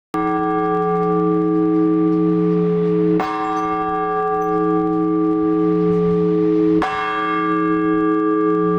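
A large Orthodox church bell struck slowly three times, each stroke about three and a half seconds apart and ringing on long over the next. These are the measured strokes of the blagovest, the single-bell ringing that calls the faithful to the Liturgy.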